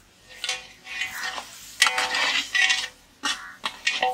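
Long metal ladle scraping and stirring around the inside of a large metal cooking pot, the pot ringing with each stroke; a run of short scrapes with one longer one about two seconds in.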